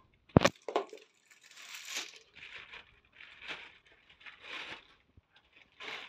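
Plastic packaging bags rustling and crinkling in bursts as vacuum cleaner parts are handled and pulled out of them, with a sharp knock about half a second in.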